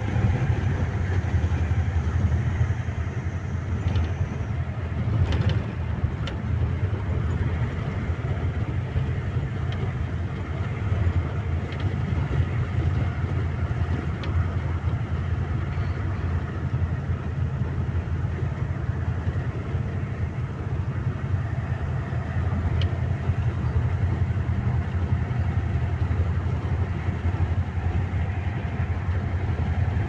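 Steady low rumble of a road vehicle driving along, engine and tyre noise heard from inside the vehicle, with a few faint clicks.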